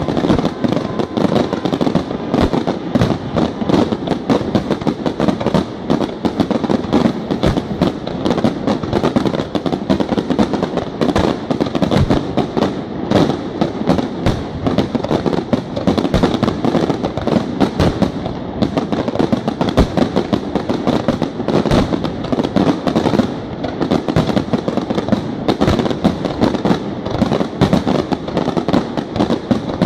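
Aerial fireworks display, with many shells bursting in rapid, unbroken succession in a dense barrage of bangs.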